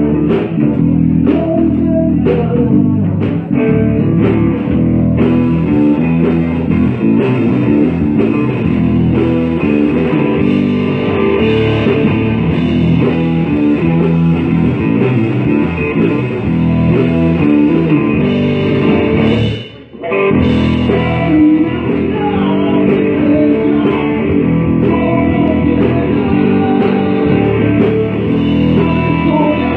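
Blues-rock played by a band, with guitar and bass guitar to the fore. The music cuts out for a moment about twenty seconds in, then carries on.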